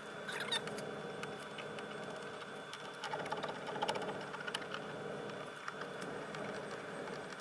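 Scattered light clicks and knocks of hands working the plastic door trim panel and its screws on a Ford E-Series van door, over a steady low hum; the clicks bunch up around the middle.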